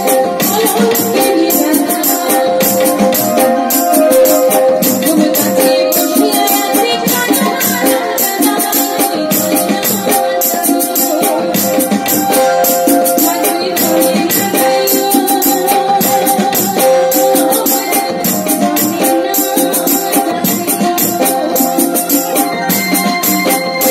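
Live Jhumur folk music from a small band of keyboards and tabla, with held keyboard notes over a fast, even rattling percussion beat.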